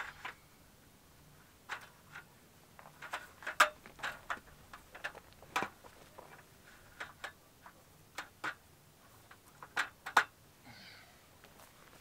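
Irregular light clicks and knocks of camp gear being handled at a folding camp table and chair, with the sharpest knocks about three and a half seconds in and again near ten seconds.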